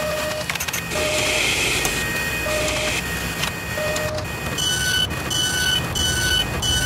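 Sound-effect machinery: a steady mechanical whirr with many clicks, short low beeps at uneven intervals, then from about two-thirds through a regular alternating high-and-low electronic beeping, about three beeps a second.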